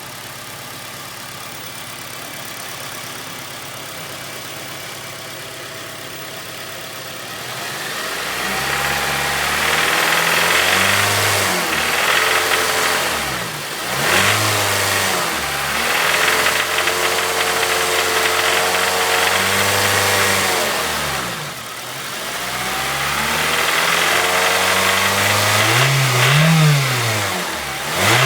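Honda K20A 2.0-litre four-cylinder engine idling steadily, then revved up and down several times from about seven seconds in. It carries a knocking sound that the owner cannot yet explain.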